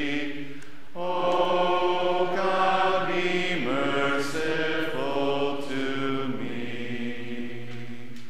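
Unaccompanied church singing with no organ: slow, chant-like sung phrases of the liturgy, ending on a long held note that fades away near the end.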